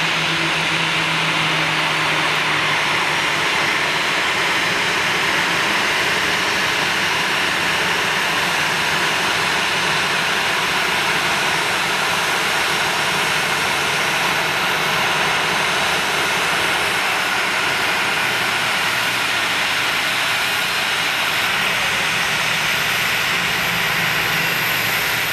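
Boeing 737-800's CFM56-7B turbofan engines at taxi idle: a steady jet whine and hiss.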